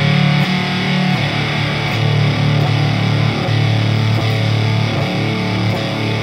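Electric guitar through a Meat Grinder Fuzz pedal, a Univox Super Fuzz-style octave fuzz with tone and clipping at max: low notes picked again every second or so and held, as the fuzz knob is brought up from low.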